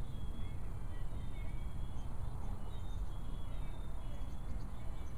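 Wind rumbling on the microphone, with birds calling in short, faint high chirps.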